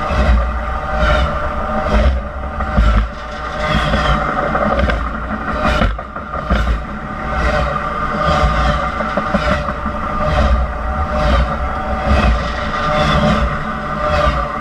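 Union Pacific train rolling over a camera at track level: steel wheels knock over the rail about twice a second, over a heavy rumble and a steady metallic ringing.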